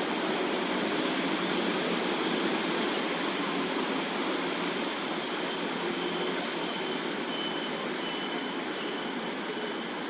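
Steady rushing background noise, like a distant roar, fading slowly, with a faint thin high tone in the second half.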